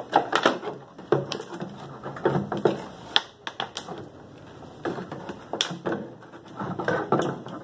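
Thin PET plastic jug crackling and clicking in irregular bursts as the cut-off neck of another jug is forced into a hole in its side, braced with a wooden stick.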